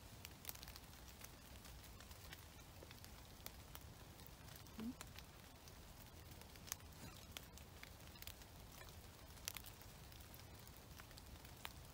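Faint ticks and crackles scattered irregularly, raindrops dripping onto foliage and wet leaf litter, over a soft steady hiss. A brief low rising sound is heard about five seconds in.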